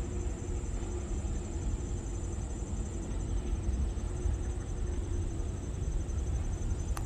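Insects trilling steadily at a high pitch over a constant low rumble, with a sharp click near the end.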